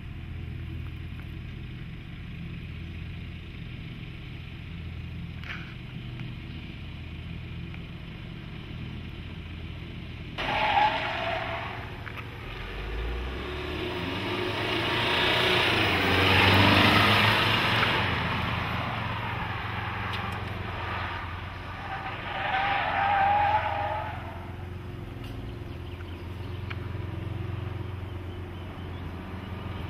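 Jeep Cherokee's 2.2-litre diesel running at low speed with a steady low hum. About a third of the way in, the sound changes abruptly to the SUV driving on asphalt: engine and tyre noise swell as it passes close, with short tyre squeals as it turns, once at the change and again later.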